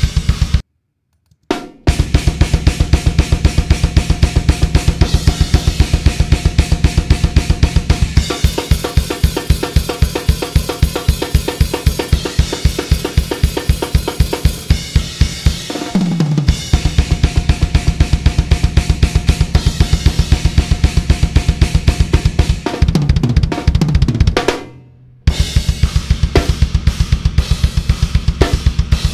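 Raw, unprocessed multitrack drum kit recording of a deathcore song playing back on its own: a very fast, steady double bass drum under a high-pitched snare, cymbals and hi-hat, all hit hard. Tom fills fall in pitch twice, and the kit stops briefly about a second in and again near the end.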